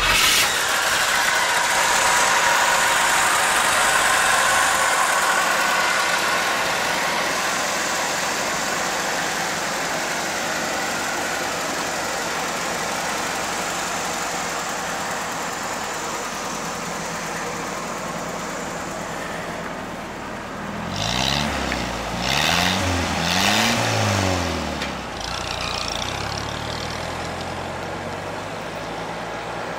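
A 1936 Chevrolet pickup with a swapped-in 2.5-litre four-cylinder engine driving by. The engine note rises and falls several times and grows louder as the truck passes close, about two-thirds of the way through, then it runs on more steadily as the truck drives off.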